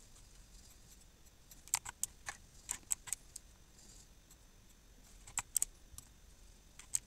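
Computer keyboard and mouse clicking: a quick run of about six key clicks, then a short cluster of three and a single click near the end.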